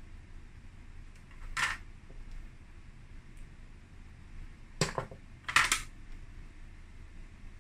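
Small hard plastic objects being handled on a table, likely a makeup bottle or compact and the plastic mirror being picked up and set down. There is a single sharp click about a second and a half in, then a quick cluster of knocks and clicks around five to six seconds in, over a steady low background hum.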